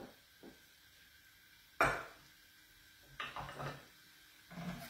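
Cookware and kitchen utensils being handled: one sharp knock about two seconds in, then softer clattering.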